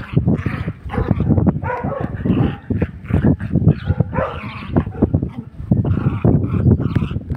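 A dog barking repeatedly.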